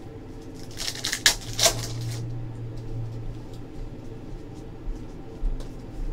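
Trading card packs and cards being handled on a table: a cluster of crinkling, sliding and tapping about a second in, then scattered light clicks. A low hum runs for about two seconds in the middle.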